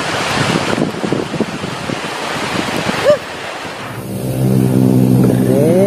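Surf and wind noise rushing over the microphone on a beach, with a short chirp-like tone about three seconds in. About four seconds in it gives way to a steady low hum that rises in pitch near the end.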